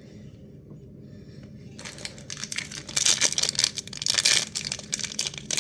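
A small plastic blind bag being torn open and crinkled by hand, starting about two seconds in.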